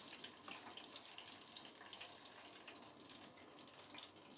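Faint, steady sizzling of food frying in hot oil, with scattered light crackles, as thin noodles are stir-fried in a pan.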